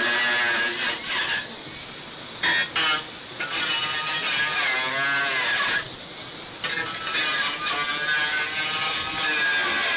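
Power tool cutting or sanding, its pitch wavering under load, in runs of a second or more broken by short pauses.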